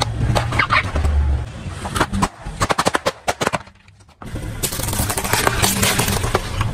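Car tyre rolling over and crushing toys and balloons: a quick run of sharp pops and cracks about halfway through, then, after a brief silence, a dense crackling crunch. The car's engine runs low underneath.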